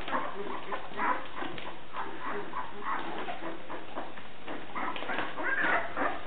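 A litter of young Briard puppies whimpering and squeaking, several thin cries overlapping, busiest and loudest about five to six seconds in.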